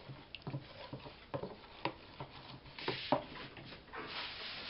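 Wire whisk tapping and scraping against the sides of a plastic bowl in quick strokes while stirring a thin, liquid yeast sponge batter, then a rustle near the end.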